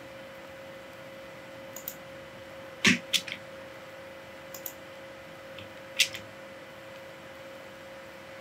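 A few short, sharp clicks from a computer mouse and keyboard, the loudest about three seconds in and again about six seconds in, over a steady faint electrical hum.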